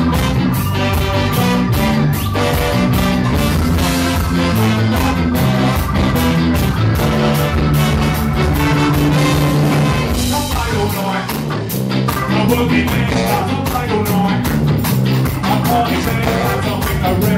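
Live ska band playing, a horn section of trumpet, trombone and tenor saxophone over drums, bass and electric guitar, on a steady beat. The horns hold long notes through the first half, and the playing turns busier after that.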